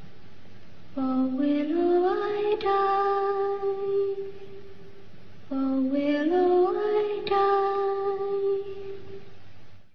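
A lone female voice singing a slow, lullaby-like melody in two phrases, each climbing in steps to a long held note; it fades out near the end.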